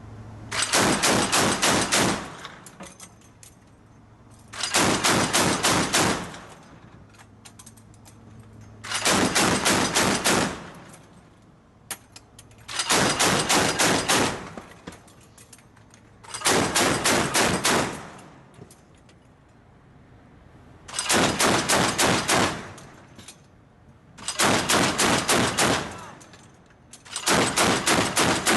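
Mk 38 25mm chain gun (M242 Bushmaster) firing on automatic in eight short bursts of several rapid rounds each, about four seconds apart; the last burst is still going at the end.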